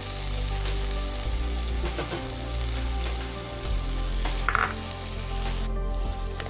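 Spiced tomato and capsicum masala sizzling in hot oil in a pan as sour yogurt is stirred in with a spatula, with a few light scrapes and clicks. A steady low hum runs underneath.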